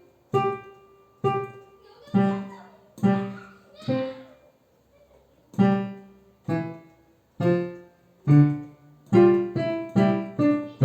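Music: a slow melody of single notes, each struck and left to fade, with a short pause about halfway through and quicker notes near the end.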